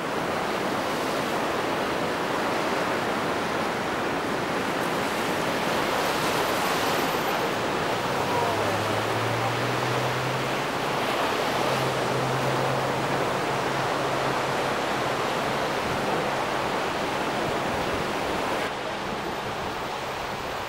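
Steady rush of ocean surf breaking on a sandy shore. The level drops slightly near the end.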